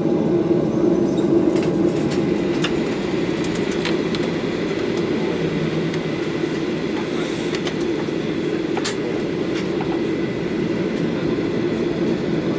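Cabin noise inside a Boeing 737-800 taxiing: the steady hum of its CFM56 engines at idle over the rumble of the airframe rolling, with a few light clicks and rattles scattered through.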